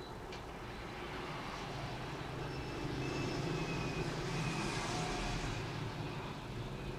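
Background traffic noise that swells in the middle and then fades, as a vehicle passes by.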